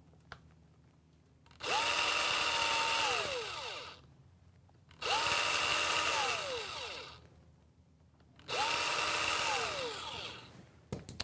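Hand-held power drill with a small bit drilling pilot holes for barb tees into a 1/2-inch plastic irrigation hose: three runs of about two seconds each, the motor whine climbing quickly to speed, holding steady, then winding down as the trigger is released.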